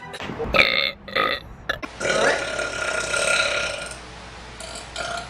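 A woman burping: two short burps, then a long drawn-out burp of about two seconds, and another starting near the end.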